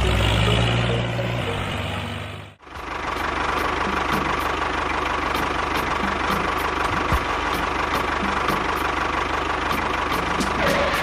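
An engine running steadily, broken by a short dropout about two and a half seconds in.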